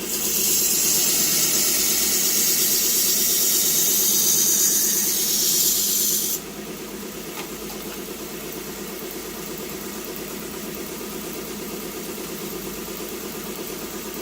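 Steel knife blade being ground on a running powered sharpener near the ricasso: a loud, steady hiss for about six seconds that cuts off suddenly when the blade is lifted, leaving the machine's motor humming steadily.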